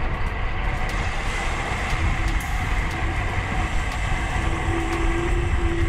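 Wind buffeting a handlebar-mounted GoPro and road-bike tyres rolling on asphalt while riding: a steady, loud rumble with no let-up.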